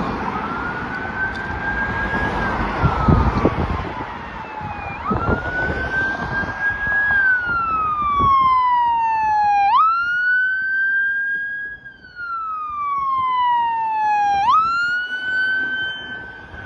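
Fire engine siren wailing, its pitch rising and falling in slow sweeps about five seconds long, getting louder as the truck approaches. Traffic passes on the road during the first few seconds.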